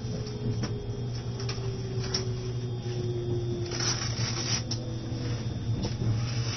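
Interior of an E653 electric train running slowly: a steady low rumble, with a faint motor whine falling in pitch over the first few seconds and scattered clicks and short rattles.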